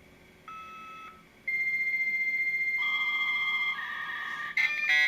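56K dial-up faxmodem handshaking over a phone line: a short beep, then from about a second and a half in a long steady high answer tone, which gives way to shifting tones and, near the end, loud harsh screeching as the two modems negotiate the connection.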